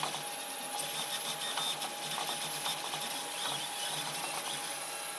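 Protomaker Black Sprint FDM 3D printer running mid-print: its stepper motors whir in shifting tones as the print head moves, over a steady hum with scattered light clicks.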